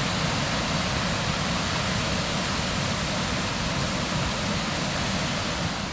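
Steady, full roar of a waterfall's rushing water, with no change until it cuts off abruptly at the very end.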